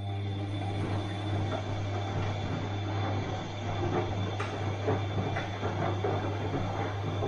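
Bosch washing machine running: a steady low hum under a hiss, with irregular small clicks and knocks throughout.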